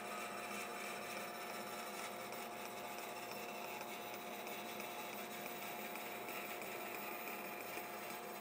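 Band saw running steadily, its blade slowly cutting lengthwise through a wooden plank along a marked line: an even hum with a faint whine. This is a test cut to let the blade show the angle it drifts at.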